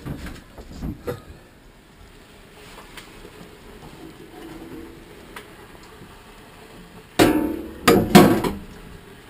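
Metal damper of a Russian stove set against the oven mouth: a few light knocks at the start, then three loud metal clangs with ringing about seven and eight seconds in.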